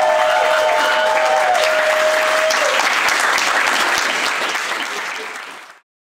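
Audience clapping, with a long held note sounding over it for the first two and a half seconds. The clapping thins and fades, then cuts off abruptly near the end.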